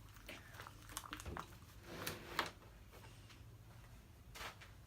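Homemade glue slime being mixed and squished in a bowl: soft wet squelching with a few light knocks.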